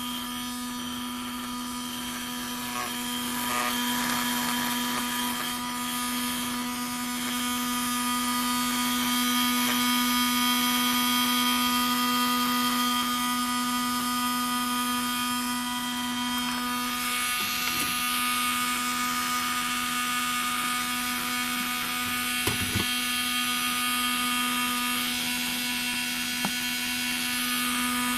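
Washing machine drain-pump generator rig running steadily, a whine made of a strong low hum with several higher steady tones above it. A couple of faint clicks come in the second half.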